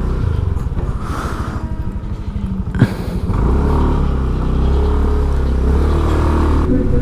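Motor vehicle engine running close by, with a single sharp click a little before halfway, after which the engine hum grows stronger and steadier.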